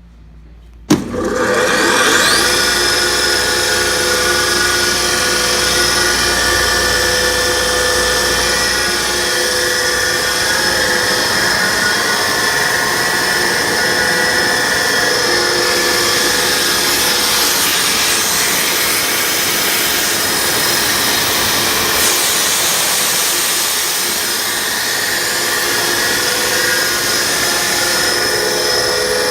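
Ingersoll Rand 20 hp rotary screw air compressor starting up: a sharp clunk about a second in, a rising whine as the electric motor and screw spin up, then running steadily with a loud whine and hiss.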